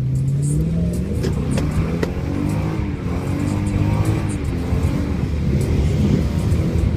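Lexus GS430's 4.3-litre V8 engine and exhaust, revving up over about the first second, holding higher and wavering, then dropping back partway through. This is the exhaust sound the owner calls bad.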